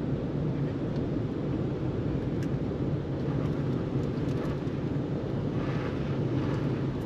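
Four-wheel-drive truck driving along a road of packed snow and ice: a steady low rumble of engine and tyre noise.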